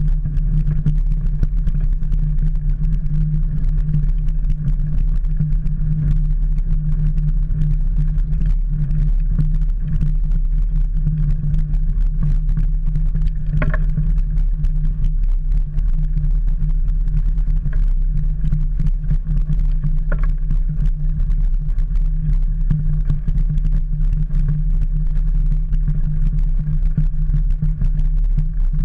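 Steady low rumble of wind buffeting and road vibration on a camera mounted to a mountain bike's handlebars as it rolls over a rough lane. Two brief sharp ticks stand out, about halfway through and again some six seconds later.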